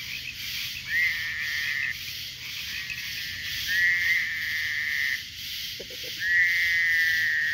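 Frogs calling in a cat-like way: drawn-out calls about a second long, each rising at the start and then held, repeating every two to three seconds over a steady high-pitched chorus.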